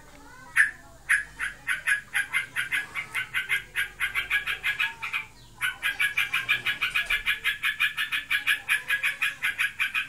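Yellow-vented bulbul chattering non-stop in rapid, evenly repeated notes, about seven a second, with two short breaks. The owner is unsure whether this is a sign of breeding condition or of a bird in full song.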